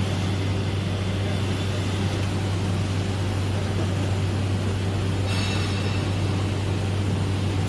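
Single-head edge milling machine running as its milling head carriage travels along the edge of a clamped steel plate: a steady low machine hum under even mechanical noise. A brief higher whine rises over it about five seconds in.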